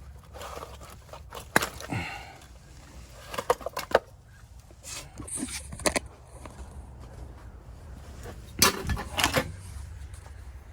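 Scattered knocks and clicks over a steady low hum, with a louder cluster of knocks near the end.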